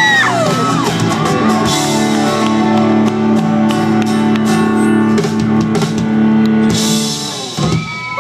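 Live country-rock band of electric guitar and drum kit holding a long final chord, with repeated cymbal and drum hits, fading away near the end as the song finishes.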